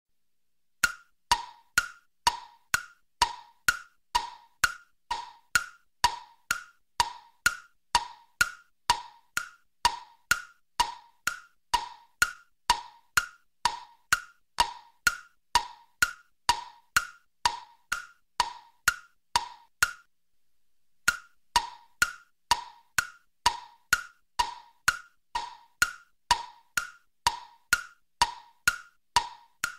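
Background music track of a wood-block percussion loop: sharp, evenly spaced knocks about two a second, alternating between a lower and a higher pitch. The loop breaks off for about a second some twenty seconds in, then starts again.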